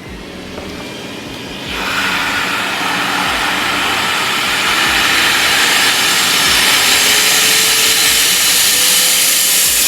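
Miele Blizzard CX1 Cat & Dog bagless canister vacuum's 1200-watt motor running, with its suction turned up on the rotary dial: a jump in loudness about two seconds in, then a slow rise in pitch and level.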